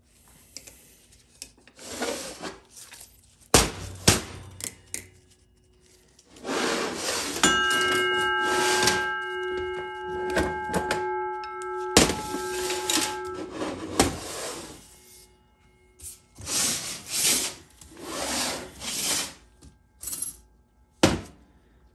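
Steel automatic-transmission drum and sun shell being handled on a metal bench: metal parts scraping and sliding against each other, with several sharp knocks. About seven seconds in, a knock sets a part ringing like a bell for about six seconds.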